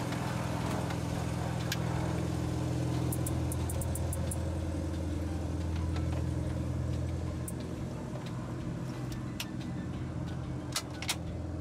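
Piston engine of a small light aircraft running steadily, with a few sharp clicks near the end.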